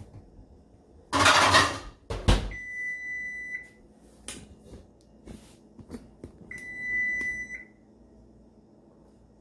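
Electric range's oven timer beeping at the end of its countdown: a long, high, steady beep of about a second, repeating about every four seconds, heard twice. About a second in there is a brief, loud rushing noise, the loudest sound here, followed by a knock.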